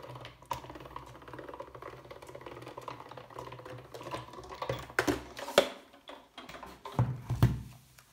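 Hand-cranked Action die-cutting and embossing machine being turned, its gears and rollers giving a steady run of rapid small clicks as the plate sandwich passes through. After about five seconds come a few louder knocks as the plates are taken out and set down.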